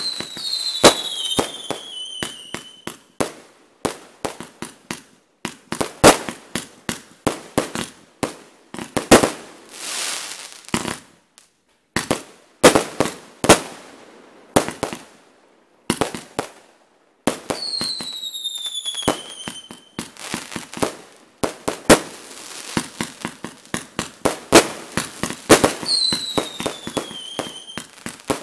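Aerial firework display: a rapid string of shell bursts and bangs, some followed by crackle, with a few brief lulls. Three whistles fall in pitch: one at the start, one a little past halfway and one near the end.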